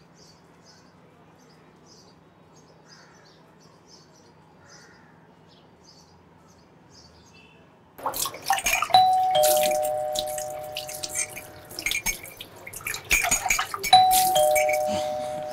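Quiet room with faint high chirps, then from about eight seconds in water splashing and running at a tap. A two-tone electronic doorbell rings ding-dong, a higher note then a lower one, twice about five seconds apart.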